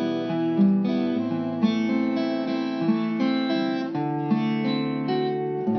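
Instrumental music led by a strummed acoustic guitar: the introduction to a song.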